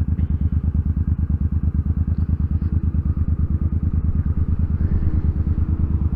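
Motorcycle engine running at a steady speed, its exhaust beating in an even, rapid pulse.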